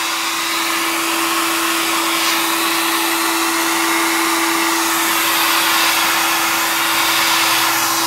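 Hand-held hair dryer running on its low setting: a steady rush of air with an even motor hum.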